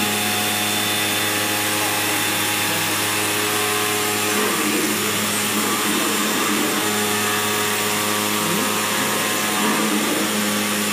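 Flatbed CNC package-sample cutting machine running: a steady mechanical hum with a hiss, its tool head travelling along the gantry over the cutting table.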